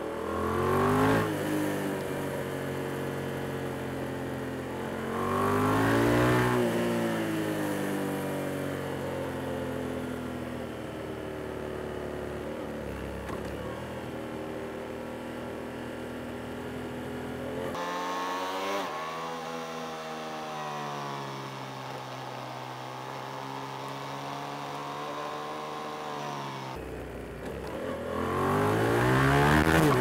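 Yamaha MT-07's 689 cc parallel-twin engine heard from the rider's seat, revving up and down while riding. The revs climb sharply twice in the first several seconds, settle into a steady run, drop lower just past the midpoint, then climb again near the end.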